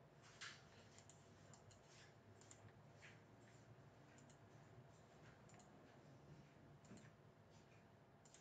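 Near silence with faint, scattered clicks of a computer mouse as on-screen sliders are dragged and set, the loudest about half a second in.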